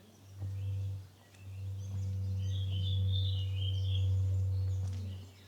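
Outdoor street ambience: a low rumble that starts and stops, with small birds chirping briefly over it in the middle.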